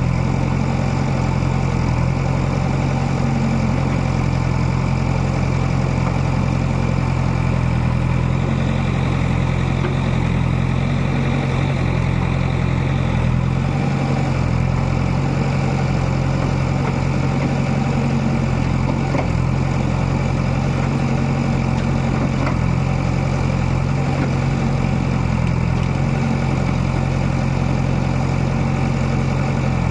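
Diesel engine of heavy earthmoving equipment running at a steady speed, a constant low drone with no revving up or down.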